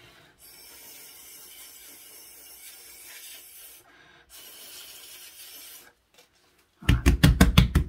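Breath blown through a drinking straw across freshly poured resin to pop surface bubbles: a steady airy hiss in two long breaths with a short break between. Near the end a fast run of loud knocks starts.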